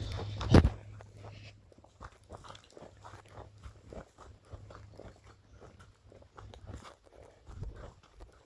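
Footsteps crunching along a path, a run of short irregular steps, with a loud thump about half a second in.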